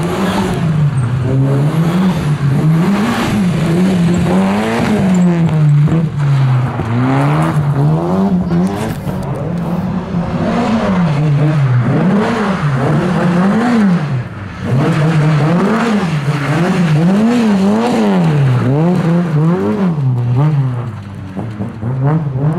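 Race car engine revving hard and falling back over and over, its pitch rising and dropping every second or two, as it is driven through a tight slalom of tyre stacks.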